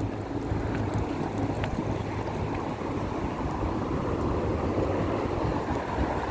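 Steady road traffic noise with wind rumbling on the microphone.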